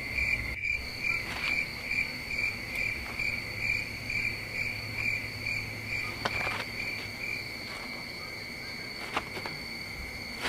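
Crickets chirping in a steady, evenly pulsing trill, with a couple of faint knocks in the second half.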